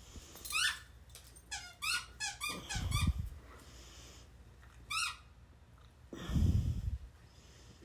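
A dog whimpering in short high-pitched squeaks, a quick run of them in the middle, with low snuffling snorts near the middle and toward the end.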